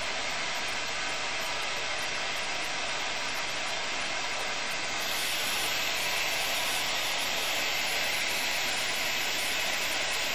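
Two handheld gas torches burning with a steady hiss while steel held in locking pliers is heated in their flames. The hiss grows louder and brighter about five seconds in.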